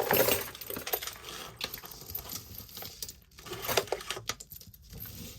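Small irregular clicks and clinks of costume jewelry being handled and set down, with light rustling.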